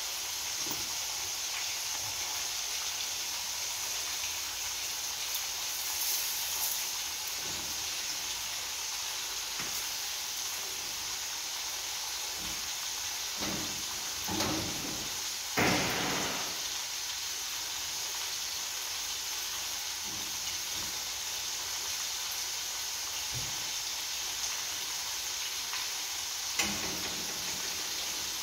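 Hot oil sizzling steadily in a deep frying pan as festivals (fried cornmeal dumplings) fry. Around the middle a few knocks and scrapes of a utensil against the pan and plate as the dumplings are lifted out, and a single sharp click near the end.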